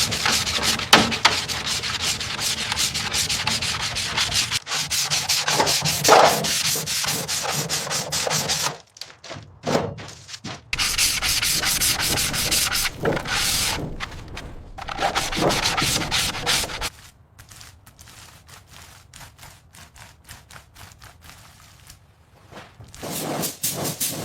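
Rough abrasive rubbing, made of rapid repeated strokes. It stops briefly about nine seconds in, comes back, and turns fainter for several seconds before rising again near the end.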